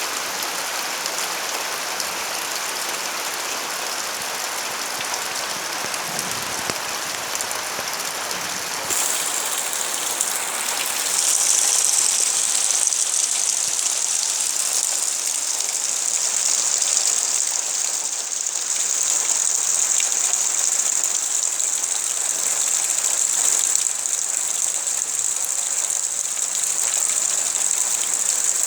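Steady rainfall with a dense, even hiss. About nine seconds in it grows louder and hissier and stays that way.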